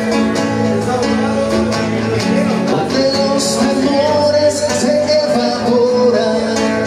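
Classical guitar strummed live, a song continuing on the guitar.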